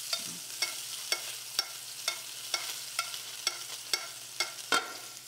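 Salmon fillet sizzling as it fries in brown butter, while a spoon basting it clinks against the pan about twice a second.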